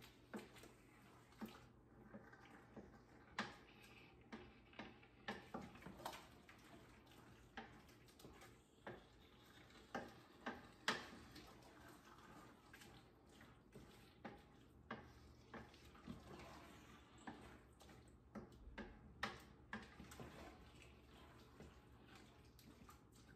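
A cooking utensil clicking and scraping against a stainless steel stockpot as a tomato meat sauce is stirred: light, irregular knocks, one or two a second, with the loudest about halfway through.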